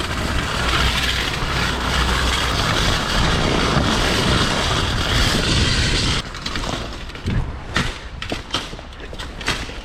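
A mountain bike's bare rear rim rolling on the ground with no tyre: a loud, harsh grinding scrape, which drops away about six seconds in to quieter rolling with scattered knocks and clicks.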